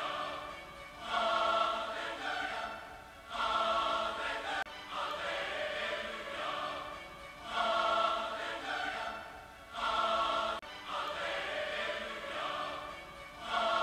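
Background music: a choir singing in swelling phrases.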